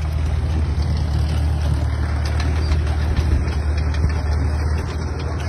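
A large engine running steadily at idle, with a low, even rapid pulse.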